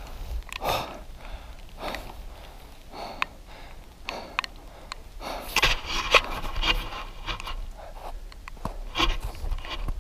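A person breathing hard in irregular puffs while climbing a steep path, with scattered clicks and scrapes from gear or footsteps.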